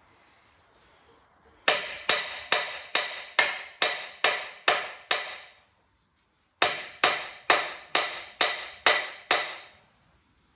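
Hand hammer striking the steel differential of a Steyr CVT tractor's front axle, to knock the bolted-in diff loose from the axle housing. Two quick runs of ringing metal-on-metal blows, a little over two a second, with a pause of about a second between them.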